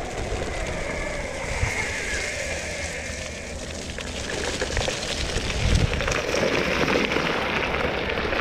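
The 8-inch all-terrain wheels of a BajaBoard S2 Atrax electric skateboard rolling downhill over a dirt and gravel trail, a steady crackling crunch of grit under the tyres with low rumble and scattered small knocks from the bumps.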